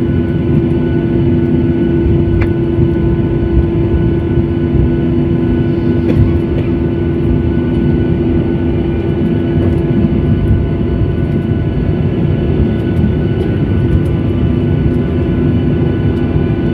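Aircraft engines droning steadily and loudly, with a constant low hum running through the noise.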